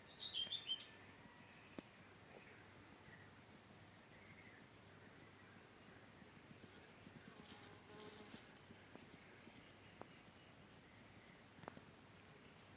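Quiet outdoor ambience: a short bird call of quick notes falling in pitch in the first second, then an insect trilling faintly in even pulses, with a few soft clicks and rustles.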